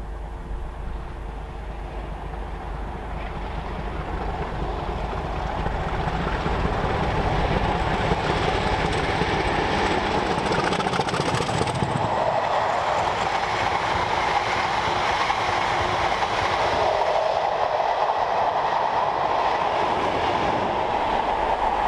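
Two Class 50 diesel locomotives, each with an English Electric 16-cylinder engine, approaching and passing close with a Class 720 electric unit in tow. The sound of engines and wheels on rail grows over the first several seconds into a steady loud rush as the train goes by.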